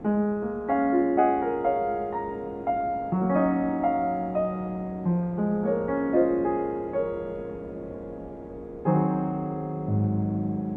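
Solo piano music: a slow melody of single struck notes over held low chords. It dies away briefly before a new chord comes in about nine seconds in.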